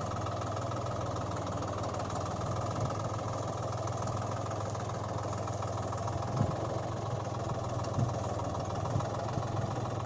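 A steady low motor hum, with a few light knocks about six and eight seconds in.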